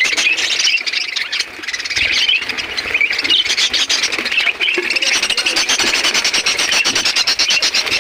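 A flock of budgerigars chattering and squawking continuously, many high calls overlapping at once.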